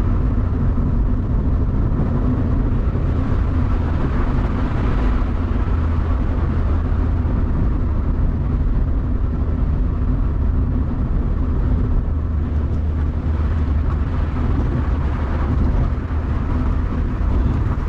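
Mazda MX-5 NB's four-cylinder engine and road noise as the car is driven, a steady low drone.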